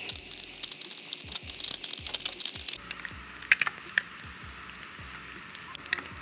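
Eggs frying in a hot pan, sizzling and crackling. Loud and full of pops for the first three seconds, then settling to a steadier, quieter sizzle with a few sharper pops.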